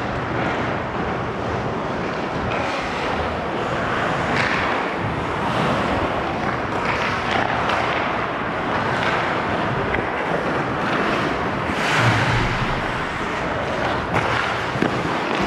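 Hockey skate blades scraping and carving the ice in repeated strides, a swell roughly every second or so, over a steady rush of air across a body-worn microphone.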